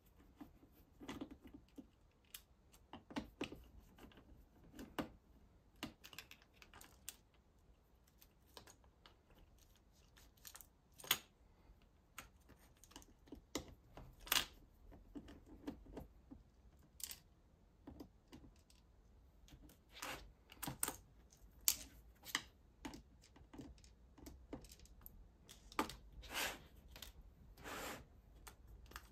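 Irregular light clicks and taps of a small screwdriver working tiny screws out of a metal bracket inside a plastic tablet housing, with small parts being set down on the table.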